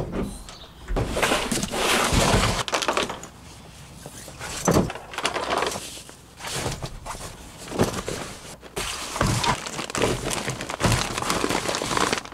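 Bags and gear being loaded into a pickup truck bed: irregular rustling and shuffling as the bags are handled, with several sharp thuds as they are set down on the ribbed plastic bed liner.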